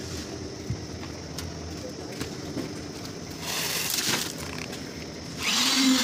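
Concrete needle vibrator's motor running, with a steady whine that gets suddenly much louder about five and a half seconds in, as the poker works the freshly poured slab concrete.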